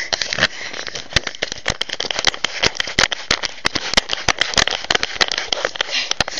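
Dense, irregular crackling and clicking, several clicks a second, over a steady hiss from a low-quality recording microphone.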